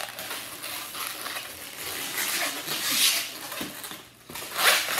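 Long latex twisting balloon squeaking and rubbing as it is handled and twisted into small bubbles, with the loudest rubs about three seconds in and near the end.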